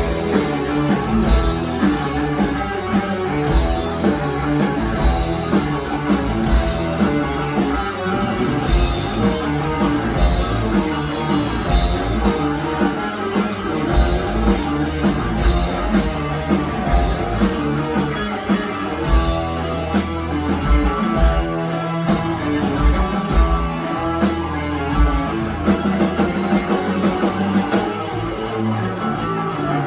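Live rock band playing an instrumental passage: guitars over a steady drum kit beat, with no singing.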